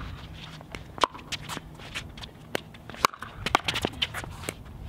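Pickleball rally: paddles striking the hard plastic ball with sharp pocks, the loudest about a second in and about three seconds in, with quicker, lighter ticks and shoe scuffs on the court near the end.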